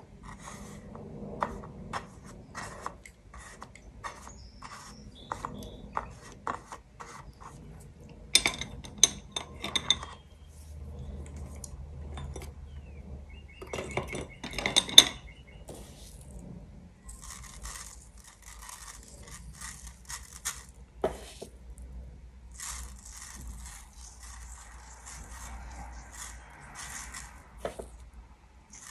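Painting handling sounds: a brush rubbing and scraping on paper, with many light taps and clinks against a dish or jar. The loudest clinks come in two clusters, about eight seconds in and about fifteen seconds in.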